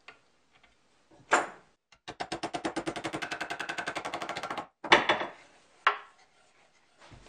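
Wooden mallet knocking a pin into a plywood jig. One knock is followed by a very fast, even run of taps lasting about two and a half seconds, then two sharp knocks, the first of these the loudest.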